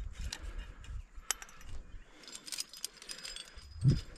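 Climbing gear clinking: cams and carabiners on a climber's rack jingling, with scattered light metal clicks and rustling as he moves up a crack. A short low thump near the end is the loudest sound.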